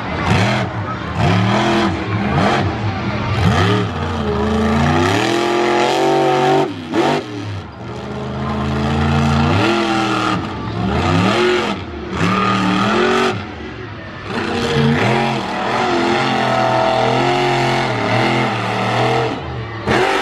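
Monster truck engine revving hard over and over, its pitch climbing and falling repeatedly. There is a long climb about four to seven seconds in that cuts off sharply, then another climb.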